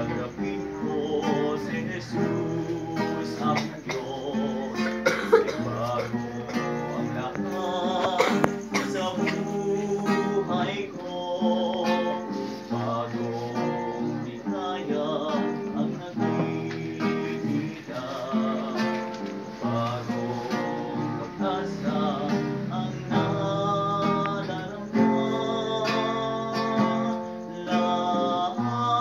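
Acoustic guitar strummed to accompany a small group of young people singing a song together.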